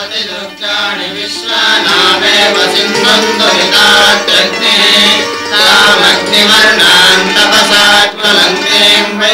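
Devotional music: chanted singing with instrumental accompaniment.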